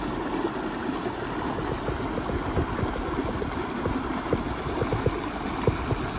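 Rocky stream rushing over boulders in small cascades: a steady hiss of water with many quick splashes and gurgles.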